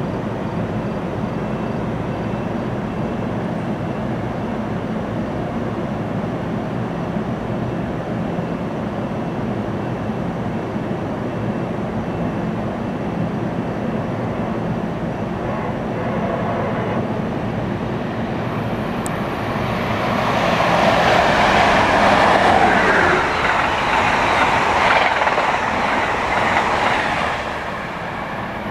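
Steady rumble of a train standing at the platform, then an Amtrak Northeast Regional train behind an ACS-64 electric locomotive passing at speed: a rush of air and wheel clatter builds about two-thirds of the way in, stays loud for several seconds, and falls away just before the end.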